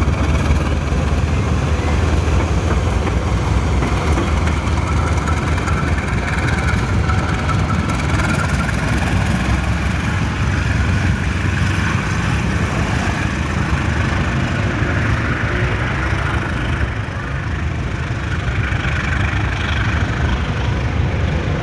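CC206 diesel-electric locomotive running light, its diesel engine giving a steady heavy rumble as it pulls away down the track, a little softer in the second half.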